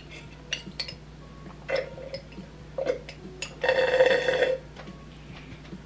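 Someone drinking from a glass jar: a few small clicks, two short gulps, then a loud slurp lasting about a second.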